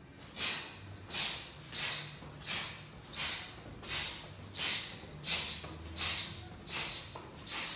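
A man's sharp, hissing forced exhalations, one with each martial-arts strike, about eleven of them at an even pace of roughly one every 0.7 s.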